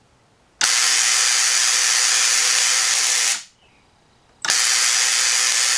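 Tesla coil firing twice: a loud, buzzing hiss of sparks over a steady low hum. The first run starts about half a second in and lasts nearly three seconds; the second starts about a second later and is still going at the end.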